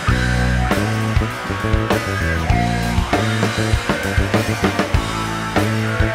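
Rock band playing an instrumental passage: electric guitars and a held bass line over a drum kit, with regular drum hits.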